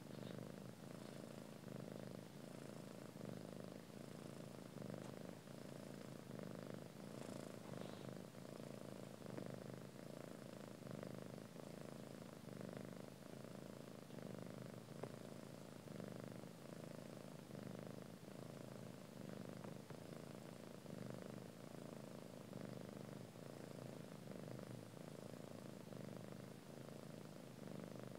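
Steady, even purring of a cat nursing her newborn kittens.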